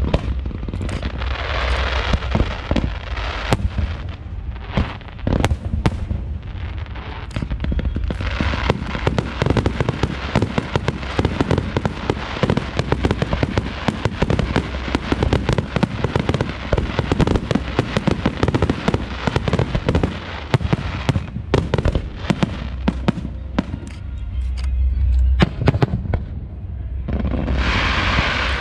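Fireworks display: a dense, continuous barrage of bangs and crackling pops, with a hissing rush that swells near the start, through the middle and again near the end.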